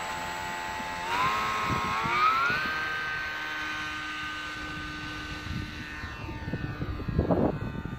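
Electric motor and propeller of a 3D-printed RC Me-109 model airplane whining. The pitch rises about a second in as the throttle opens, then holds steady. A brief low rumble comes near the end.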